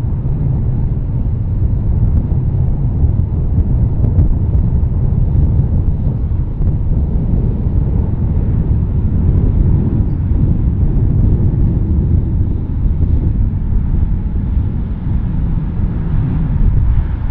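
Steady low rumble of an Airbus A321 airliner's jet engines as it comes in on final approach and lands, with faint wavering engine tones in the middle.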